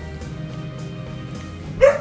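Background music, with a Chihuahua giving one short, sharp bark near the end.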